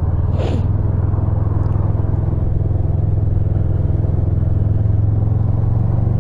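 Motorcycle engine running steadily at low revs in slow traffic, with a brief hiss about half a second in.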